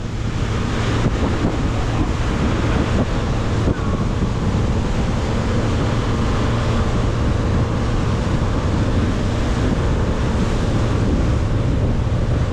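Motorboat under way: the engine drones steadily beneath wind buffeting the microphone and the rush of water.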